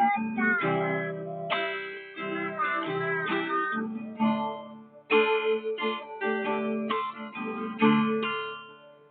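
A young child singing in a high voice over a strummed acoustic guitar accompaniment.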